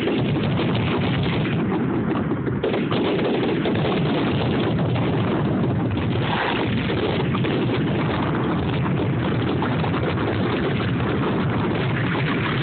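Fireworks grand finale: a rapid, unbroken barrage of aerial shell bursts running together into a continuous din, recorded through a phone's microphone.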